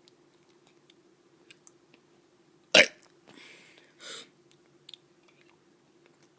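A kid's short, sharp forced burp about three seconds in, followed by two short breaths.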